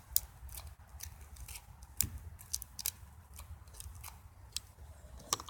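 Scissors snipping and working clear tape on the tip of a foam Nerf dart: a string of small, irregular clicks and snips.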